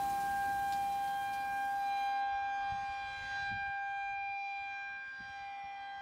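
Outdoor warning siren sounding a steady, unwavering tone over heavy rain. The rain noise cuts off about two seconds in, leaving the siren tone alone, growing fainter toward the end.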